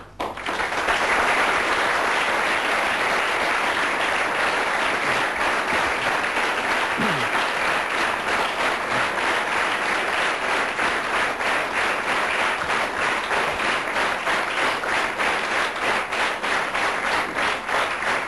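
A large audience applauding loudly and at length. In the second half the clapping falls into rhythm, clapping in unison.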